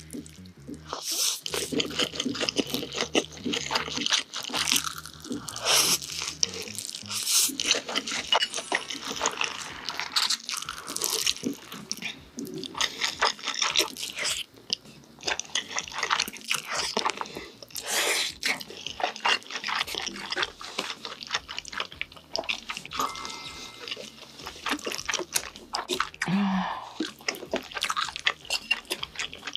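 Close-miked mouth sounds of someone eating instant noodles: continuous wet chewing with sticky smacks, slurpy clicks and crunching. A brief hum comes near the end.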